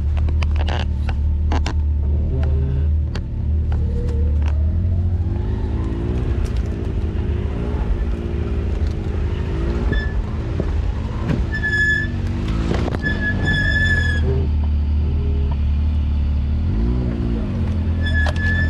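Side-by-side UTV engine running at low revs on a downhill crawl, with a few knocks and rattles in the first seconds. Its brakes squeal in short, high-pitched squeals several times in the second half, loudest near the end.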